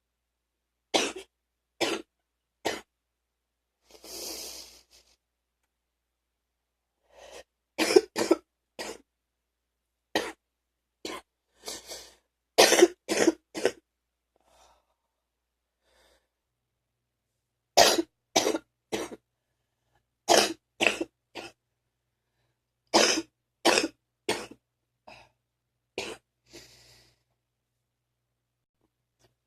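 A person's phlegmy morning cough: short bouts of two to four hacking coughs each, clearing phlegm from the chest, separated by pauses of a few seconds, with one drawn breath about four seconds in.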